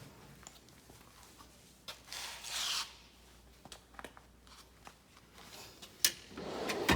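Tools being handled in a mechanic's tool box drawer: scattered small clicks and knocks of metal tools, a brief rub or slide about two seconds in, and a sharper click near the end.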